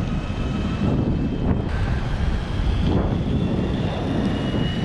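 Electric skateboards rolling on asphalt: a steady rumble of wheels on the road with a thin, high electric-motor whine above it that rises a little in pitch near the end.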